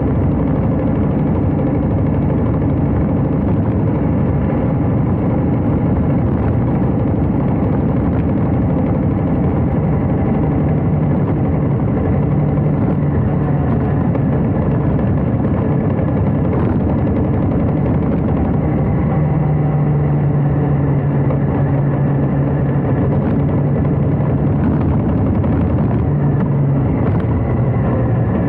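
Harley-Davidson Heritage Classic's V-twin engine running steadily while the motorcycle is ridden, a dense, even engine note with no breaks.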